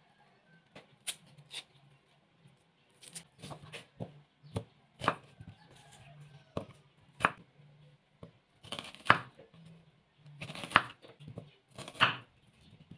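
Onions being peeled and cut with a kitchen knife on a bamboo cutting board: irregular sharp knocks of the blade striking the board, with soft rustles of onion skin in between.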